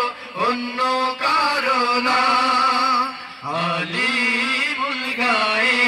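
A group of men singing a Bengali Islamic devotional song into microphones, holding long, gently wavering notes, with a short break about three seconds in.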